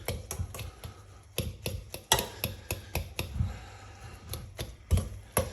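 A fork clicking and tapping against the pot while mashing potatoes, in a quick, irregular run of light metallic clicks.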